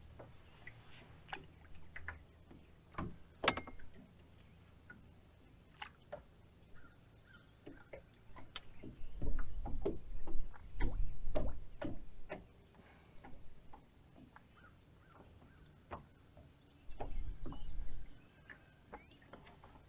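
Scattered sharp clicks and knocks, some close together, with two stretches of loud low rumble, one a little before the middle and one near the end.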